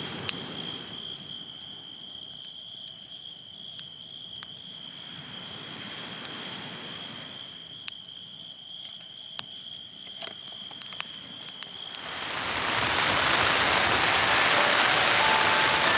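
A steady high-pitched insect trill with scattered light ticks and soft swells of wind. About twelve seconds in, heavy rain rises into a dense, loud hiss of a downpour, with faint musical notes coming in near the end.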